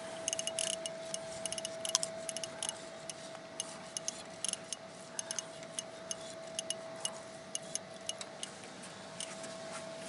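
Fishing reel clicking in quick, uneven ticks as a hooked fish is reeled in, over a steady high tone.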